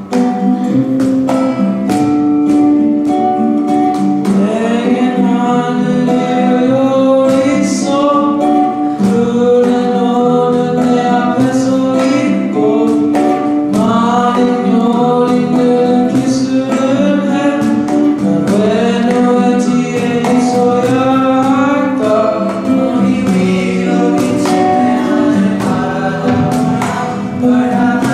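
A choir singing with plucked guitar accompaniment; the guitar plays alone at first and the voices come in about four seconds in.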